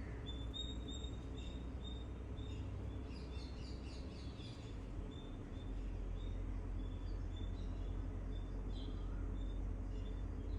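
Songbirds chirping: one bird repeats a short high chirp about twice a second, and a brief burst of quicker, higher twittering from another bird comes about three seconds in. A steady low rumble runs underneath.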